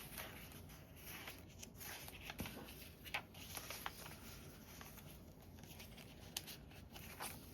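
Faint rustling and handling of paper and cardstock pockets, with a few soft scattered taps and clicks.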